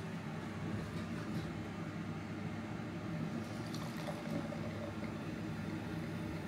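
Sparkling wine poured from the bottle into a glass, a steady stream splashing into the glass as it fills with fizzing foam.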